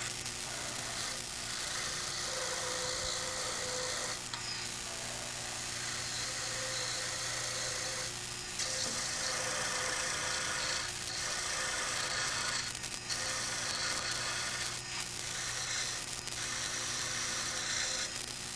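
Carba-Tec mini lathe motor running with a steady hum while a spindle gouge cuts the spinning wood pen blanks, a scraping hiss that eases off and comes back every few seconds as the tool is worked back and forth along the blanks.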